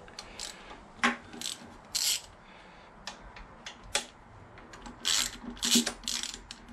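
Hand socket ratchet clicking in short irregular runs, with light metallic clicks and rubs, as the motorcycle's front fuel-tank mounting bolts are undone and backed out.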